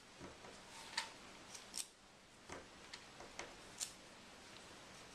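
Kitchen knife cutting broccoli stems against a plastic cutting board: a string of faint, irregular clicks and taps.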